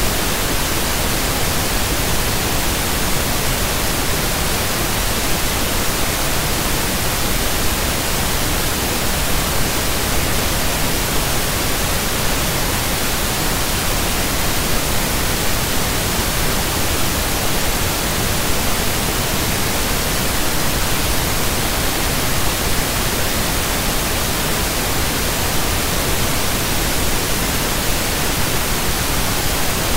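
Steady, loud static hiss, even across low and high pitches and unchanging throughout.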